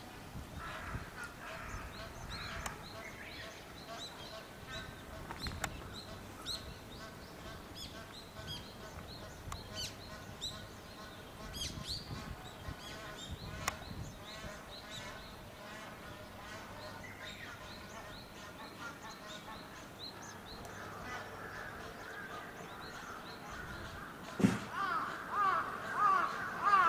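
Birds chirping throughout, then a run of loud repeated calls near the end, just after a sharp knock.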